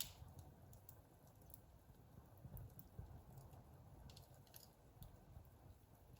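Wood fire burning in a fireplace, faint: scattered small crackles and pops over a low, steady rumble of the flames.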